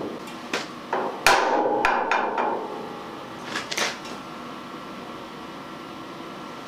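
Sharp metallic knocks and clatter on a steel chassis part: a quick cluster about a second in with a short ring after the loudest, then two more a little before the middle.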